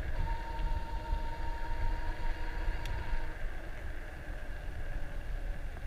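Electric bicycle riding along a paved street: wind buffeting the microphone over a low tyre rumble, with a thin steady high whine that fades out about three seconds in.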